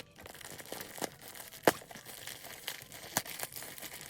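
Plastic shipping packaging and bubble wrap being pulled open by hand, crinkling with scattered sharp crackles; the loudest crackle comes about a second and a half in.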